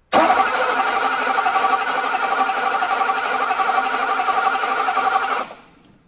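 Starter cranking the Mercedes 500SEC's M117 V8 steadily for about five seconds without the engine catching, then stopping. It is a crank-but-no-start, which traces to the ignition coil putting out too little high voltage.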